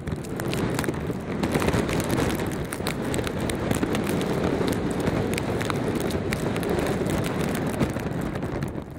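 Wind blowing over an outdoor microphone: a steady, rough rush with small scattered ticks, easing near the end.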